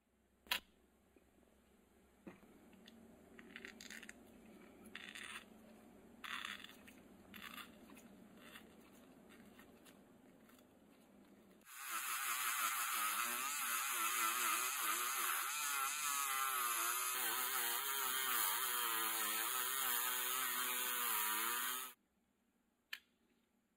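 Handheld rotary tool running at high speed with a small disc held against a small screw, starting about twelve seconds in and stopping sharply about ten seconds later; its pitch wavers and dips as the screw is pressed to the wheel. Before it starts there are quieter handling clicks and rustles.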